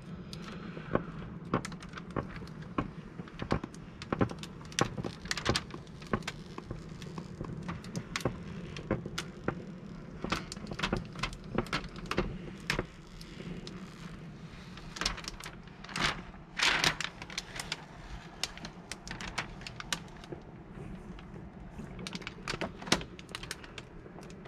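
Old window tint film being peeled off car glass after steaming, crackling and ticking irregularly as it comes away, over a low steady hum.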